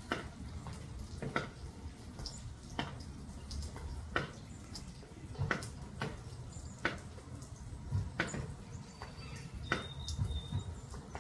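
Rainwater dripping in a slow, very even rhythm, one sharp drop about every second and a half, from light rain.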